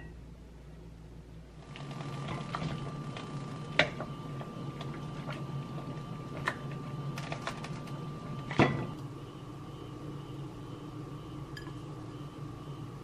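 Steady kitchen hum with a thin high tone, broken by a few sharp knocks of a lid and a wooden spoon against an enameled cast-iron Staub pot; the loudest knock comes about two-thirds of the way in, as the high tone stops.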